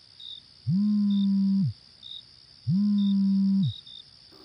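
Mobile phone on vibrate buzzing twice, about a second each with a second's pause, the motor's pitch sliding up as each buzz starts and down as it stops: an incoming call. Crickets chirp faintly throughout.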